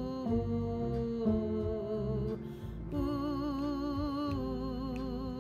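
A woman singing long, held 'ooh' notes with vibrato over a musical accompaniment, taking a breath about two and a half seconds in.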